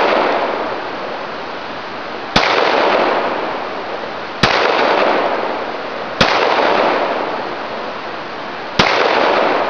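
Handgun firing four single shots, spaced about two seconds apart. Each shot rings out in a long, fading echo.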